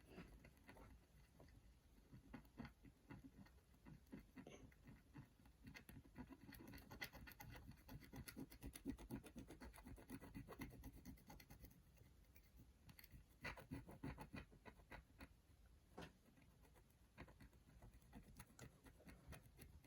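Faint, irregular scratching of a tool scraping the black coating off rainbow scratch-art paper, in short strokes that come thickest in the middle and again in a brief flurry about two-thirds through.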